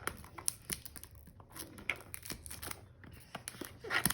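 Toy packaging being handled: irregular crinkling, rustling and small clicks of plastic and paper wrapping, a little louder near the end.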